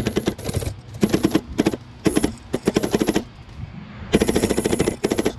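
FPV quadcopter's brushless motors (Hypetrain 2306 2450kv) and propellers in turtle mode, firing in a series of short rapid rattling bursts, the longest about a second near the end: the stuck drone is being run in reverse to try to flip and free it from the tree.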